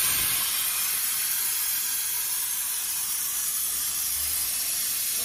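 Hồng Ký HKCUT60 air plasma cutter's torch cutting through a metal plate: a steady, high hiss of the arc and air jet.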